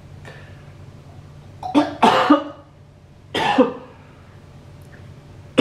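A man coughing and clearing his throat in short harsh bursts, a cluster of coughs about two seconds in and another about three and a half seconds in, set off by the lingering taste of a bitter anti-chew spray he has just licked.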